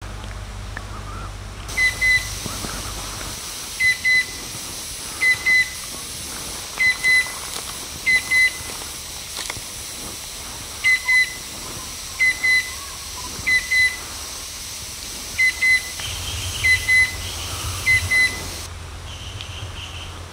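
Chestnut-winged cuckoo calling: short, high whistled notes in pairs, a double note repeated about every second and a half.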